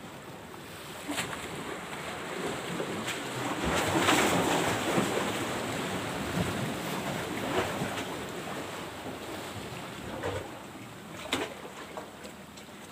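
Sea waves washing against a rocky shore, with wind on the microphone; the wash swells loudest about four seconds in. A few light clicks sound over it.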